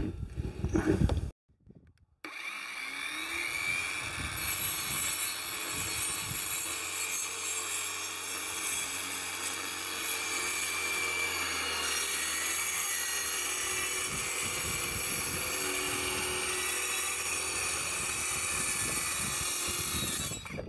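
Electric power saw running steadily through a wooden board for a long straight cut, its motor whine wavering slightly under load.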